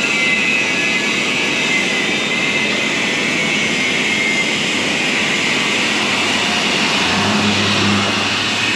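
Steady, loud rushing noise from a running machine, with a low hum coming in about seven seconds in.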